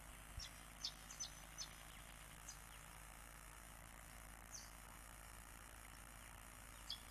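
Faint, scattered short high chirps of small birds: a cluster in the first couple of seconds, one midway and a few more near the end, over a quiet steady hiss. A soft low knock sounds just before the first chirps.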